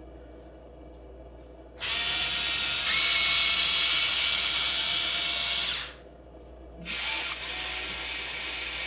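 Electric gear motors of a Huina 1580 RC excavator whining as they drive the model, which runs on gears rather than hydraulics. Two steady runs: one starting about two seconds in and lasting about four seconds, then another from about seven seconds in.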